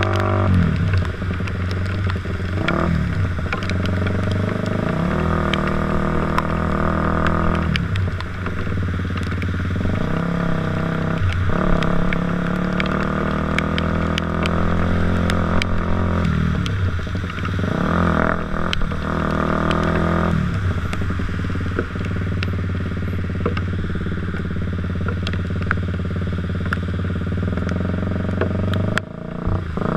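Motorcycle engine running under way, its revs dipping and climbing again several times as the throttle is eased off and opened.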